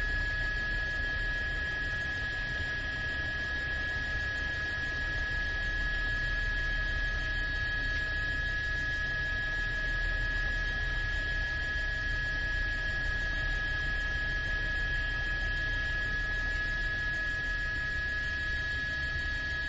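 Steady hum and hiss on an open broadcast audio line, with a constant high-pitched tone running through it, unchanging throughout.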